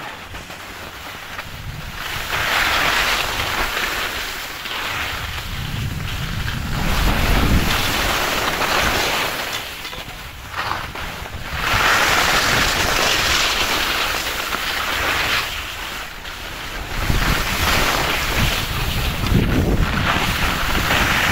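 Skis hissing and scraping over packed snow during a downhill run, with wind buffeting the microphone. It comes in surges every few seconds, a hiss alternating with a low rumble, as the skier turns.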